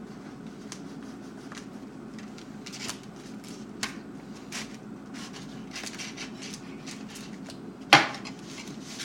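A fillet knife cutting through a sandwich, with soft scrapes and light ticks and one sharp knock about eight seconds in, over a steady low hum.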